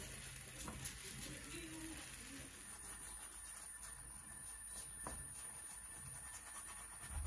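Faint, quiet sounds of a dhal puri roti frying in an oiled pan: a soft sizzle with scattered tiny ticks as oil is rubbed over its top by hand.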